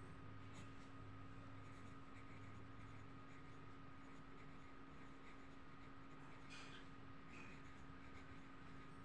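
Faint pencil scratching on paper as words are handwritten, with a couple of brief sharper strokes a little past halfway, over a steady faint hum.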